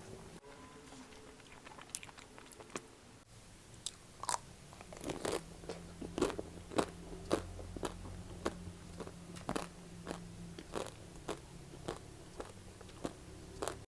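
Close-up biting and chewing of chocolate-coated ice cream, the coating cracking in crisp crunches. The crunches are sparse at first and come thick and fast from about four seconds in.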